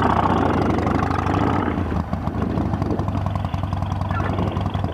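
Harley-Davidson Sportster V-twin engine running steadily as the motorcycle pulls out and rides off.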